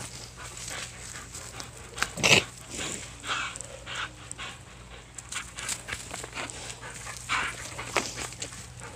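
A dog chewing and tugging at a thick frayed rope, with a short louder sound about two seconds in.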